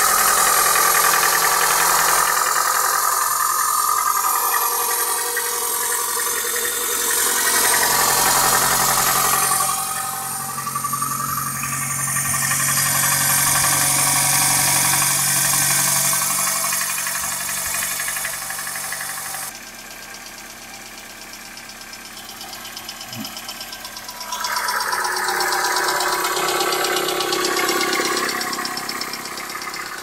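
Toyota 3S-FE inline-four idling cold, with a knock coming through its running. It is a knock from a worn 21-year-old engine that needs repair. The sound drops for a few seconds past the middle, then comes back up.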